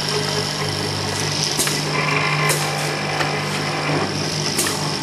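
Automatic bottle filling and capping machine running: a steady motor hum with hiss, broken by three sharp clicks about a second apart. A higher whine comes in for about two seconds midway.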